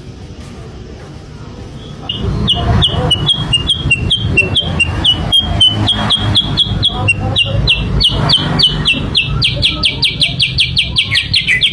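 Sooty-headed bulbul (kutilang sutra) lure song: a rapid string of short, sharp chirps starting about two seconds in, roughly four a second, quickening to about seven a second near the end.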